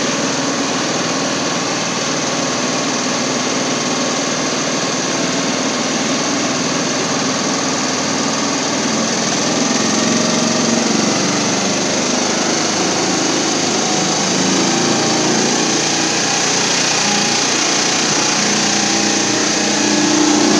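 Motorboat engine running steadily, heard from on board, growing a little louder near the end.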